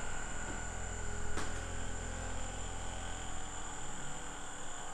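Handheld electric massager running with a steady low buzz as it is worked over a patient's back to loosen the muscles before an adjustment, stopping near the end; one light click about a second and a half in.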